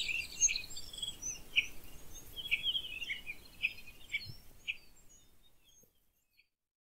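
Woodland birds chirping and calling over faint outdoor background noise. The calls thin out and the whole ambience fades to silence about five to six seconds in.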